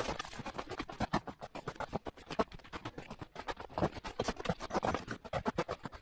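A hiker's footsteps crunching on a snowy, icy trail: a quick, irregular run of short crunches and clicks.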